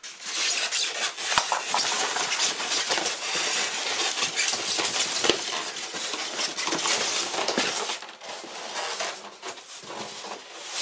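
Unboxing handling noise: packaging and metal bike-frame parts being moved and unpacked, a dense stream of rustling with many small clinks and clatters. It turns quieter and more broken for the last few seconds.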